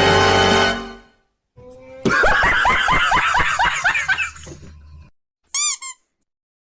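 A string of meme sound effects. A music clip cuts off about a second in. Then comes a laughing sound effect of quick, falling 'ha' notes lasting about three seconds, and near the end a short high-pitched tonal blip.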